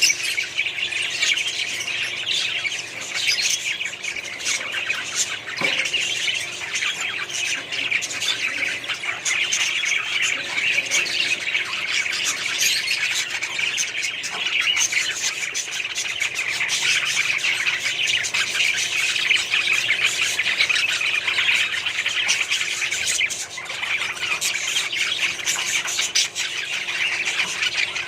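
Indian parrots squawking and chirping in a dense, unbroken chatter.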